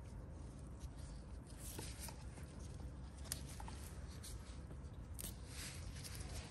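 Rustling of chilli plant leaves and stems as gloved hands pick chillies, with a few brief scratchy crackles, over a steady low rumble.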